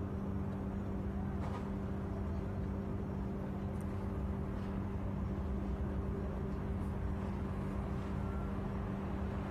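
Steady low outdoor rumble with a constant low hum under it and a couple of faint short sounds.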